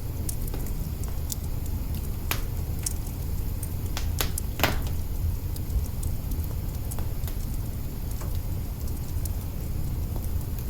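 Wood fire in an open kitchen hearth crackling, with scattered snaps and a few louder pops about two seconds in and again around four to five seconds in, over a steady low rumble.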